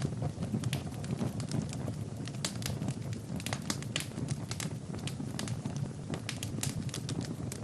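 Fire crackling in a fireplace: many sharp, irregular pops and snaps over a steady low rumble of the flames.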